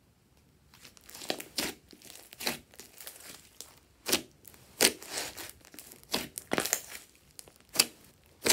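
Thick glossy slime being stretched, folded and pressed by hand, giving a string of short crackling, squishing pops as trapped air pockets burst. The pops come irregularly, roughly one every half second to a second, after a near-quiet first second.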